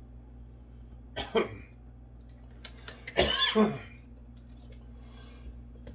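A man coughing to clear a bit of raw potato that went down into his airway: a short cough about a second in, then a longer, harder bout around three seconds in.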